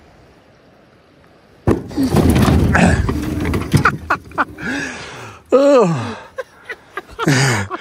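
Sudden loud commotion about two seconds in, with startled shouting and cries from a person, one of them falling in pitch, after a quiet start.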